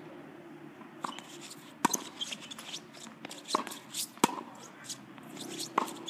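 Tennis rally on a hard court: sharp pops of rackets striking the ball and the ball bouncing, about six in all, roughly a second apart.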